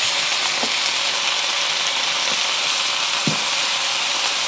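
Tomato wedges sizzling steadily in a hot stainless steel wok, with a couple of soft knocks about half a second and three seconds in.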